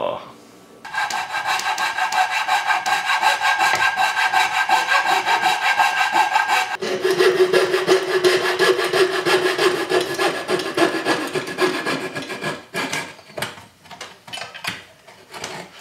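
Coping saw cutting a curved shape in a poplar board by hand: fast, steady strokes with a high ringing tone through them that drops lower about seven seconds in. The strokes turn fainter and more scattered over the last few seconds.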